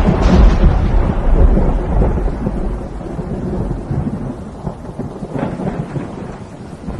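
Thunder rumbling loudly after a close lightning crack and fading over a few seconds, with a second, smaller crack about five and a half seconds in.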